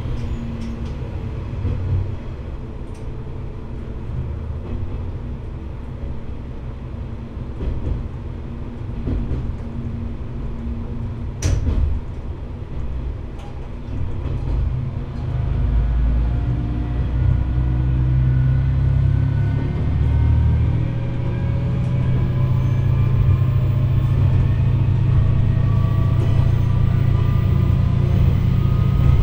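Diesel railcar running along the line: wheels and engine make a steady rumble, with a single sharp knock about eleven seconds in. About halfway through, the diesel engine comes under power and gets louder, its pitch slowly rising as the train accelerates.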